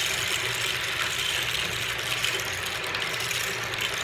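Rain stick being tipped, the pebbles inside trickling down its length in a steady rain-like hiss.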